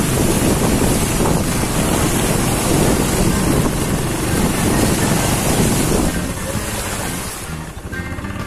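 Wind buffeting the microphone outdoors, a loud steady rumble that eases about six seconds in.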